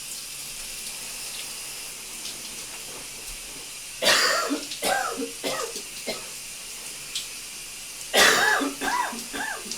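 A man coughing in two fits, each a hard cough followed by three or four smaller ones, over the steady hiss of running shower water.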